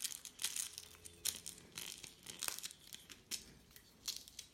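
Velcro strap being pulled through a slot in a plastic bike food-carrier base, scraping and rustling in short, irregular strokes.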